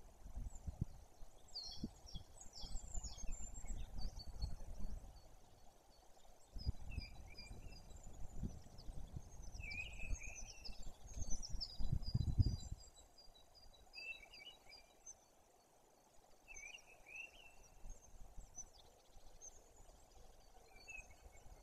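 Small songbirds chirping and calling, with a quick run of repeated high notes around the middle. Under them, wind gusts rumble on the microphone in two long stretches, then ease off about halfway through.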